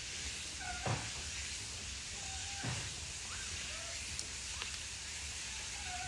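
Faint short monkey calls, brief coos recurring about every two seconds with a couple of rising-and-falling ones in the middle, over a steady outdoor hiss.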